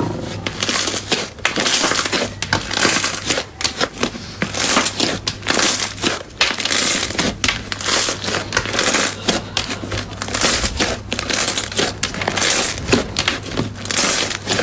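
Slime being squeezed and pressed by hand, giving a dense, continuous run of crunchy crackling.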